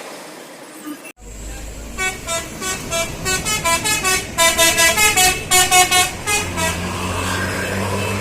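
Bus 'telolet' multi-tone horn playing a quick tune of short notes, several a second, starting about two seconds in. A bus engine runs steadily underneath and is heard alone near the end.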